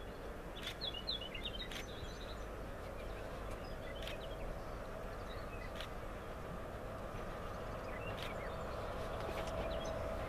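Birds chirping over the steady low rumble and faint hum of a distant BB 75000 diesel locomotive hauling a container train, slowly growing louder as it approaches.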